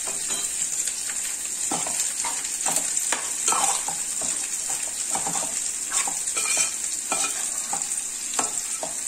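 A metal spoon stirring and scraping a thick chicken curry in a metal pot, in irregular strokes, over a steady sizzle of the curry cooking on the heat.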